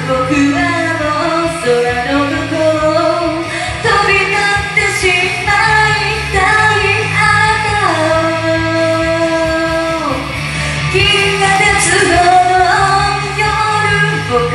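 A punk rock song sung over its band backing track, the voice holding one long note about halfway through before it falls away.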